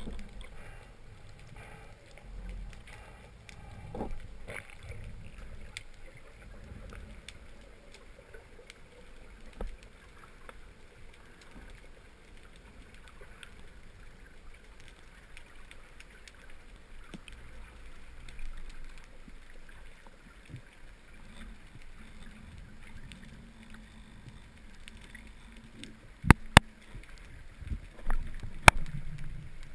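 Muffled underwater sound through a camera's waterproof housing: a faint low rumble with scattered light clicks, and three sharp clicks near the end, the first two close together.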